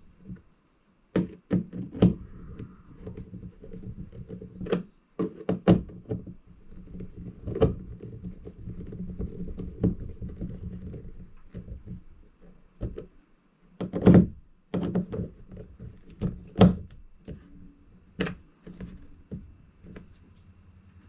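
Hand screwdriver driving a screw into a plastic kayak deck fitting: irregular sharp knocks and clicks of the tool on the fitting and hull, over a low rubbing rumble while it turns. The loudest knocks come about two-thirds of the way through.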